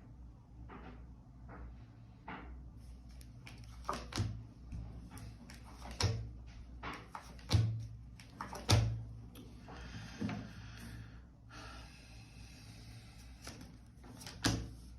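Tarot cards being handled on a table: a series of sharp taps and knocks as cards are put down, the loudest two about a second apart near the middle, and two stretches of rustling shuffle between them and the last tap.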